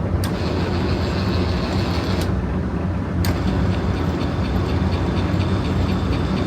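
Large engine lathe running under power with its power compound being driven: a steady low machine hum with a higher gear whine, sharp clicks as levers are thrown, then a fast, regular ticking from the compound's drive for the second half.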